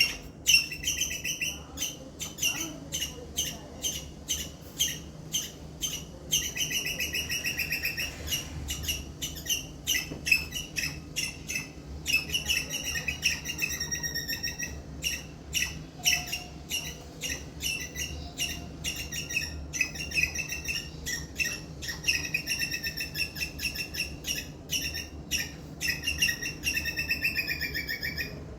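Indian palm squirrel calling: a long series of sharp, high-pitched chirps, two or three a second, broken every few seconds by rapid trilled runs lasting a second or two.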